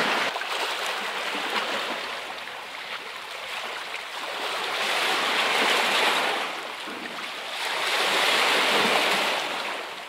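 Sea waves washing against the shore. The surf noise swells and fades three times.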